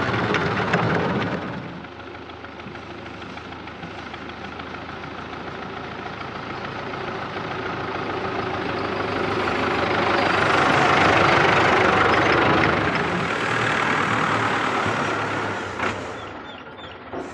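Diesel tractor engine running under way: loud at first, then quieter, building steadily to its loudest around the middle, then fading away, with a short knock near the end.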